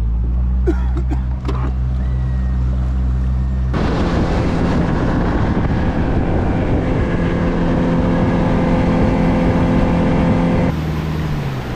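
A small boat's motor running steadily under way. About four seconds in, the sound jumps to a louder rushing run with the engine still audible, and near the end it drops back to the lower, steadier drone.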